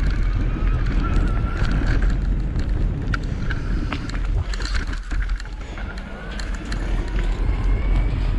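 Wind buffeting the microphone while riding an electric mountain bike on a trail, a steady low rumble with scattered clicks and rattles from the bike over the ground. A faint whine rises and falls throughout, and the rumble eases briefly a little past the middle.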